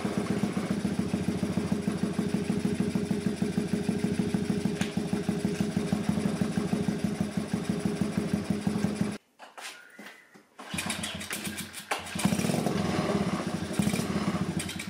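Honda ATC70 single-cylinder four-stroke engine running steadily at idle through a homemade welded muffler, fairly muffled. It cuts out abruptly about nine seconds in, runs again from about twelve seconds, and is shut off with the kill switch near the end.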